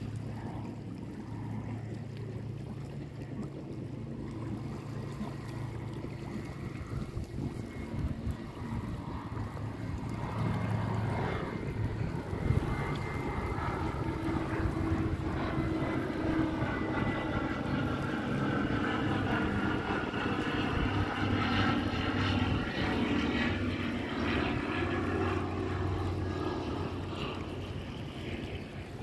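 Propeller-driven aircraft flying over, its engine drone building to its loudest about two-thirds of the way through and then fading away.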